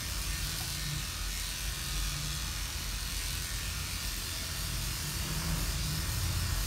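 Electric pet grooming clipper running with a steady buzz as it trims a dog's head fur.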